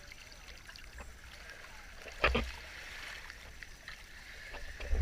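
Water splashing and lapping in the shallows, with one louder splash a little over two seconds in.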